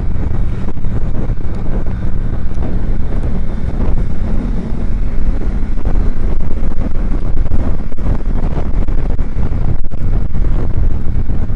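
Ducati Diavel 1260's 1262 cc Testastretta L-twin engine running steadily while riding, mixed with wind noise on the microphone.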